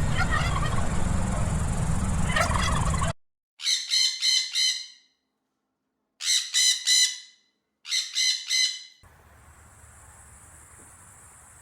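Three bursts of rapid, pulsing bird calls, each about a second long and separated by silence, after a few seconds of loud, noisy background.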